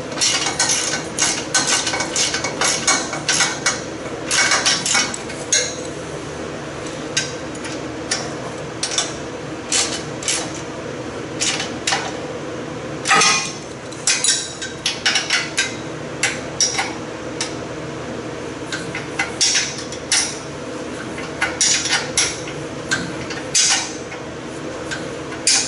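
Hand wrench clinking against bolts and the steel tube frame of a race car as the bumper is bolted up snug: irregular clusters of sharp metallic clicks over a steady hum.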